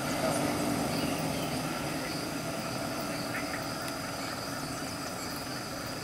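Steady chorus of evening insects, holding unbroken high trilling tones, over a low rumble.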